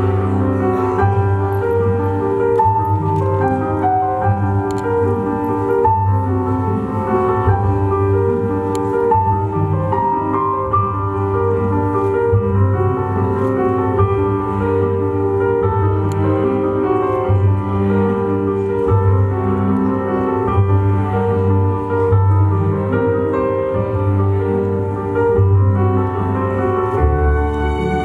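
Slow instrumental music with piano and low bowed strings, held notes over a steady bass.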